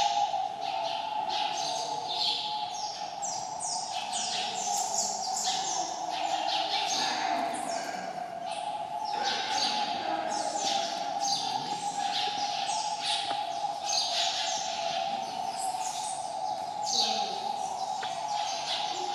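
Many small birds chirping busily and without pause, a dense chatter of short, quick, downward-sweeping calls, over a steady hum.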